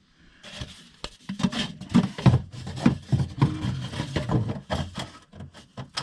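Heater air outlet being pushed and worked into a freshly cut hole: irregular rubbing, scraping and knocks.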